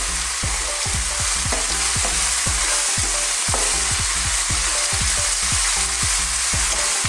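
Bean sprouts, chicken liver and chicken breast sizzling in a frying pan with a steady hiss while a wooden spatula stirs them, knocking on the pan many times.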